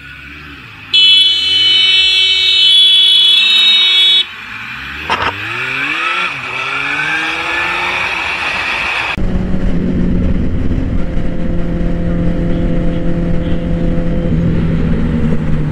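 Motorcycle engine revving and rising through the gears, with a loud horn blast held for about three seconds near the start. After an abrupt change about nine seconds in, a sport bike runs steadily at highway speed, with wind noise.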